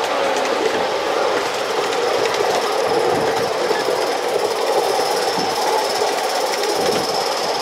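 Ride-on miniature railway train rolling along its narrow track: a steady rattle of small wheels on the rails, with a thin high whine joining about two seconds in.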